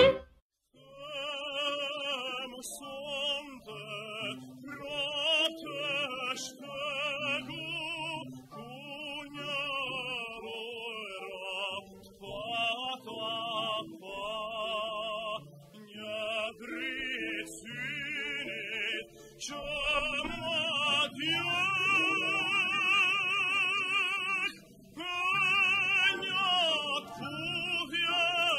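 A classical voice singing in operatic style with wide vibrato over quiet instrumental accompaniment, starting about half a second in after the previous music cuts off.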